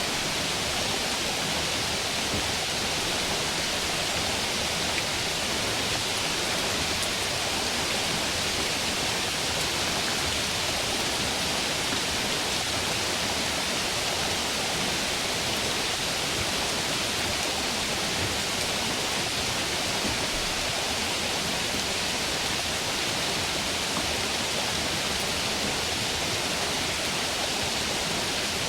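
Stream water rushing steadily, an even hiss that never changes or breaks.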